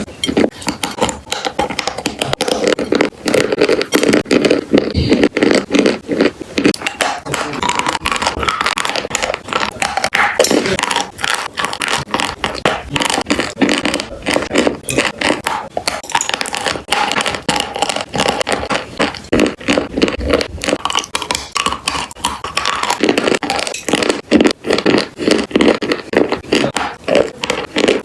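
Chalk and clay being crunched close to the microphone: a dense, continuous run of sharp crackling crunches, changing character a couple of times as one clip gives way to the next.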